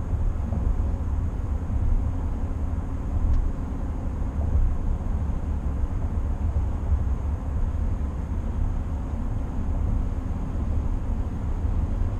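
Steady low rumble of road and tyre noise inside the cabin of a 2020 GMC Sierra 1500 AT4 pickup cruising at highway speed.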